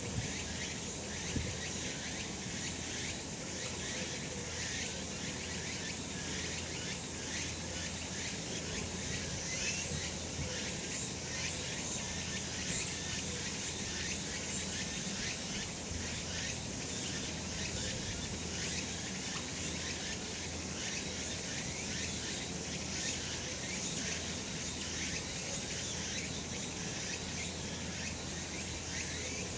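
Chorus of cicadas singing continuously, a dense high-pitched buzzing with fast, uneven pulsing.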